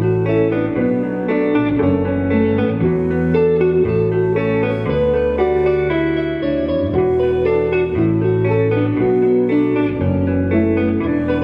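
Indie rock band playing live: guitar chords over a bass line that changes note every second or so, sustained and loud without a break.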